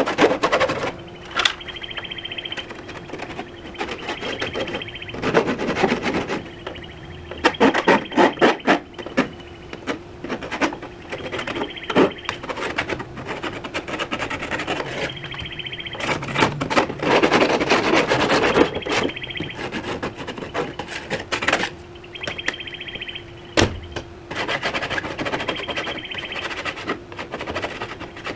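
Sanding an aluminium door panel: repeated scratchy rubbing strokes that come and go in bursts of a second or two.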